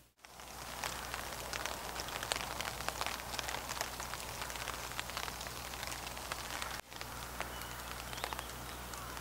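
Rain pattering on a tarp shelter overhead: a steady, dense run of small drop ticks.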